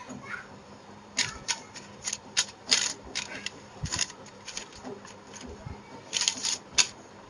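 A sheet of oiled notebook paper crinkling and crackling as a hand presses it against the inside of an aluminium pressure cooker. The crackles come in irregular clusters, with the loudest between about one and four seconds in and again near the end.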